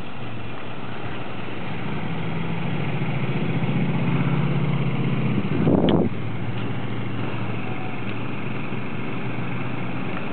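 Road traffic at an intersection: a motor vehicle's engine drone grows louder over a few seconds and passes close about six seconds in, then drops away sharply, leaving a steady traffic hum.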